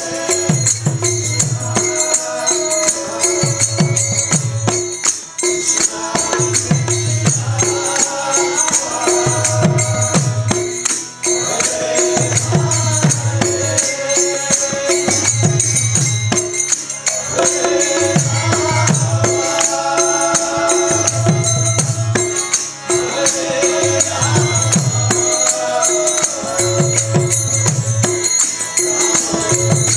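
Kirtan chanting: a lead voice and group singing over two mridanga drums, whose deep strokes come in clusters about every two seconds, with a constant metallic jingle of hand cymbals and a steady held drone underneath.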